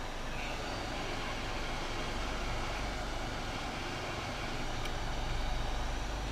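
Steady rushing of air with a low hum underneath, getting a little louder near the end.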